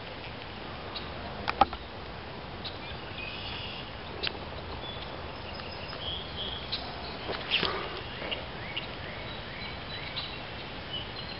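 Outdoor ambience: a steady faint hiss with scattered short, high bird chirps and calls. A few sharp clicks stand out, the loudest about one and a half seconds in.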